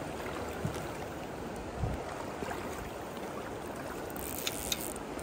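Steady rush of a shallow river's current running over stones, with a soft low thump about two seconds in and a few faint clicks near the end.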